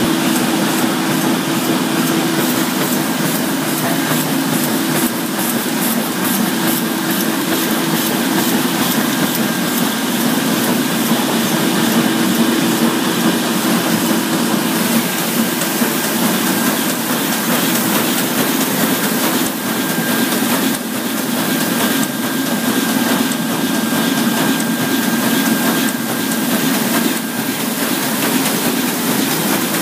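1973 Heidelberg SORDZ two-colour sheet-fed offset press running: a steady, fast mechanical clatter of its rollers and sheet-feed mechanism over a constant hum.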